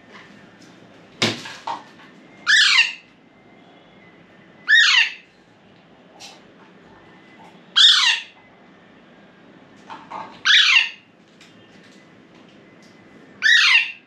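Hungry baby parrot giving five loud, short begging calls, each falling steeply in pitch, one every two to three seconds, demanding more food. A single knock about a second in.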